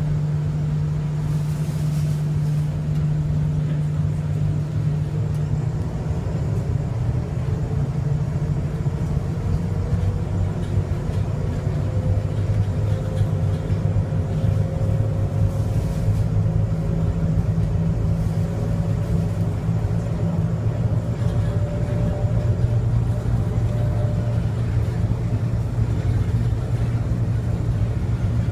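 Bombardier Innovia APM 100 rubber-tyred people mover running along its guideway, heard from inside the carriage. A steady low drone comes from the tyres and running gear, with a faint whine that rises slightly in pitch midway.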